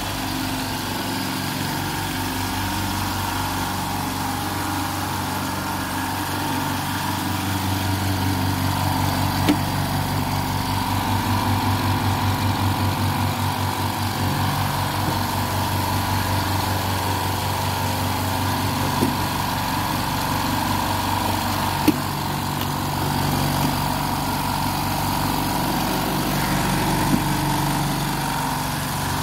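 Kölner 4 hp silent air compressor, several motor-pump heads on a 200-litre tank, running with a steady even hum, with a few brief clicks.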